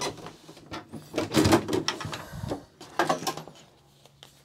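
Handling noise from a plastic computer case and its cables being worked loose and pulled out: a run of clicks, scrapes and rustles that dies away after about three seconds.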